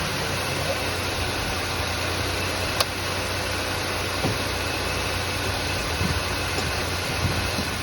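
Ford F-150 pickup engine idling steadily after an oil change, with a single sharp click about three seconds in.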